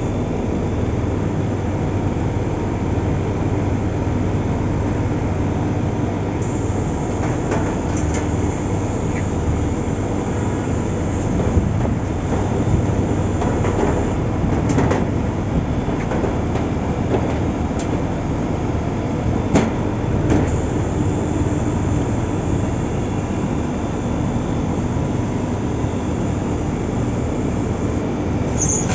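Steady, loud machine-like running noise with a low hum and a few faint clicks scattered through it.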